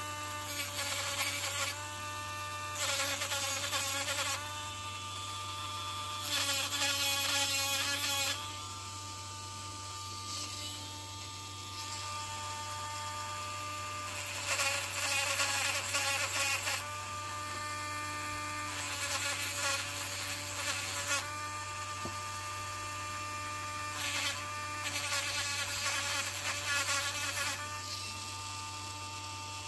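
Dremel rotary tool running with a steady high whine, its sanding drum grinding against the small steel axe head in about six bursts of one to three seconds each, cleaning heat tarnish off the surfaces.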